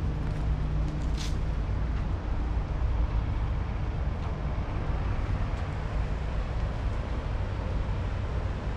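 Steady low rumble of outdoor background noise, with a low hum in the first few seconds and a brief high hiss about a second in.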